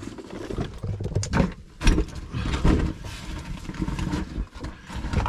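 Scraping, rustling and knocking of a person scrambling over rough lava rock, with low rumbling handling noise on the camera microphone; a sharp knock about two seconds in is the loudest.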